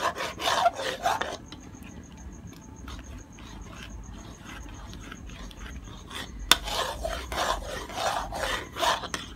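Spatula scraping back and forth across the bottom of a metal wok in quick repeated strokes, stirring sugar as it melts into caramel in oil. The scraping is strongest at the start and again from about six and a half seconds in, fainter in between.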